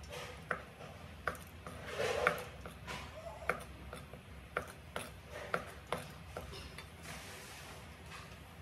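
Kitchen knife slicing white beech mushroom stems on a wooden chopping board: a dozen or so irregular sharp knocks of the blade hitting the board, with a louder rustling scrape about two seconds in.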